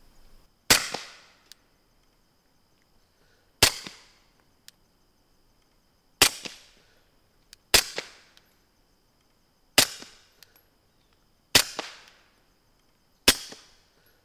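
Seven suppressed shots from a 9mm Beretta 92 pistol fitted with a Gemtech multi-mount suppressor, fired one to three seconds apart. Each is a sharp report with a short tail, and faint ticks fall between some of the shots.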